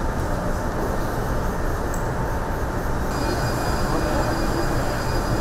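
Steady mechanical din of an aircraft carrier's hangar bay, a dense rumbling noise, with a faint high-pitched whine joining about three seconds in.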